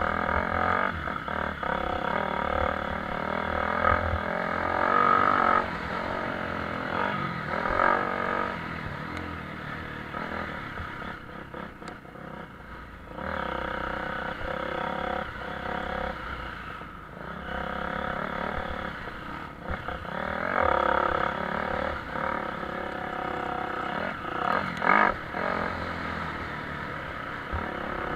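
Motocross motorcycles racing, their engines revving up and dropping off over and over. The sound swells several times as bikes come closer and fades between.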